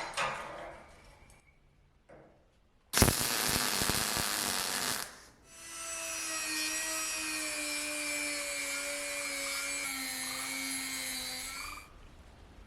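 A power tool working metal: a burst of harsh grinding noise for about two seconds, then a motor whine that runs steadily, sagging slightly in pitch, and stops suddenly near the end.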